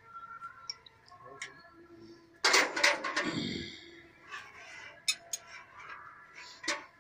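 Metal clicks and knocks from hand work on a tractor's hydraulic lift linkage. About two and a half seconds in comes one loud metallic clatter that rings briefly, followed by lighter clinks.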